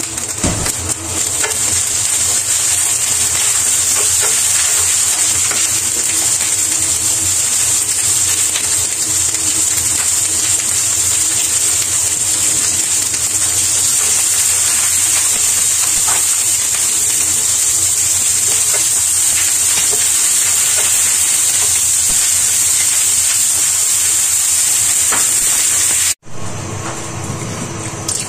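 Broccoli florets sizzling in hot oil in a nonstick frying pan, a steady loud hiss, with light scrapes and knocks as a wooden spatula stirs them. The sizzle cuts off suddenly near the end.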